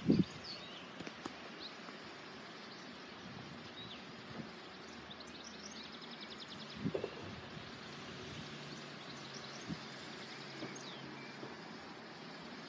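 Quiet outdoor ambience with small birds chirping now and then, a rapid trill about five seconds in and a soft thump about two seconds later. A faint low hum sits in the background for a few seconds.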